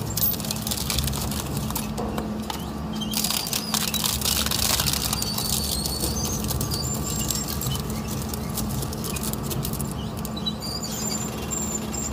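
Twin-shaft shredder running with a steady low hum while its toothed rotors tear up red cloth lanterns with a dense crackling and rustling, and a few brief faint high squeaks.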